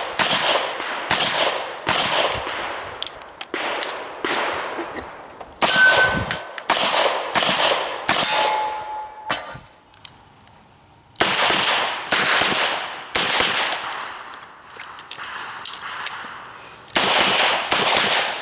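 Revolver shots in a rapid string, with bullets clanging and ringing off steel plate targets, about one to two strikes a second, with a break of about a second and a half just past the middle.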